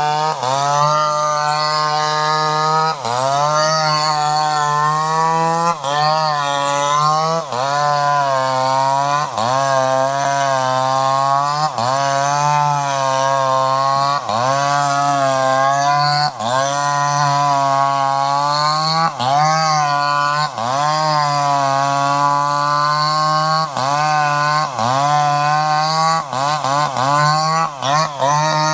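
Chainsaw engine running at high revs. Every second or two its pitch dips briefly and climbs back, and the dips come quicker near the end.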